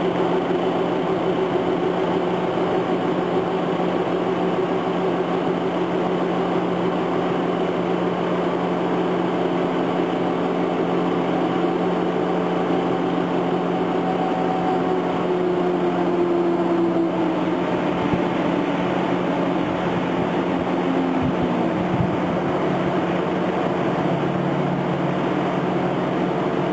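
Boat travel lift's engine and hydraulics running steadily while lowering a sailboat in its slings into the water, with a whine that slides down in pitch about fifteen seconds in and a shift in the low hum near the end.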